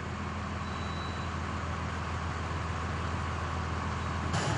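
Food truck's engine running steadily as it drives, with road noise. About four seconds in the sound changes abruptly to a slightly louder, deeper engine hum.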